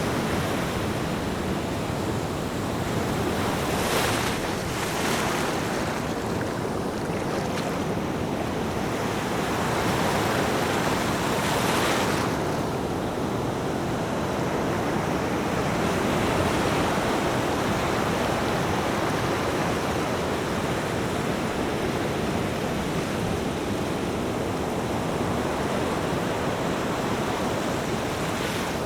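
Ocean waves breaking and washing on the shore, a steady surf with a couple of louder hissing breakers about four and twelve seconds in, and some wind on the microphone.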